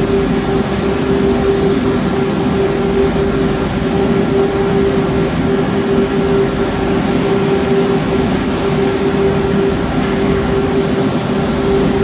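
Roller-conveyor shot blasting machine running: a loud, steady mechanical noise with a constant mid-pitched hum, unchanging throughout.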